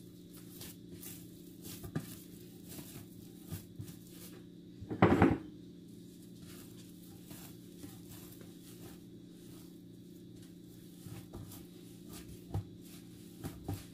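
Bread dough being kneaded by hand on a plastic-covered table: scattered soft thuds and knocks, with one louder slap about five seconds in and a few sharper taps near the end, over a faint steady hum.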